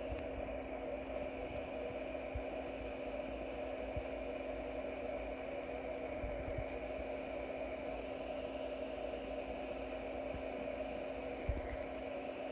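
Steady background hiss with a low hum, broken only by a few faint soft ticks.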